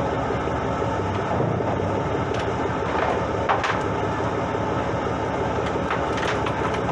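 Fishing boat's engine running steadily, with a few faint clicks scattered through it.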